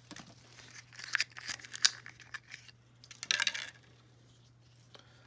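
Small plastic doll parts clicking and packaging rustling as a fashion doll is handled, with sharp clicks early on and a short rustle a little over three seconds in.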